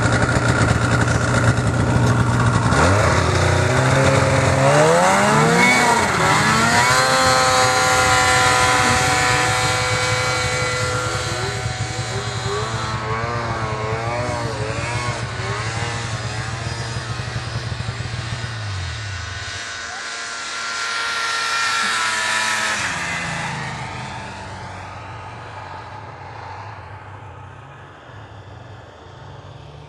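Snowmobile engine running hard, its pitch climbing as it accelerates and then wavering up and down with the throttle. A sled swells loud about two-thirds of the way through, then fades away with falling pitch.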